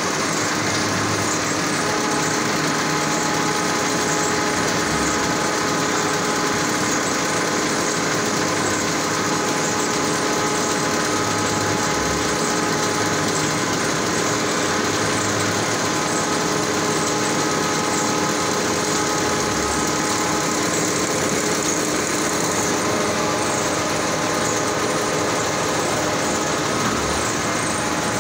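Hunkeler book-making paper line running slowly, at about 70 metres a minute: a steady mechanical din with several held tones, and a low thud now and then.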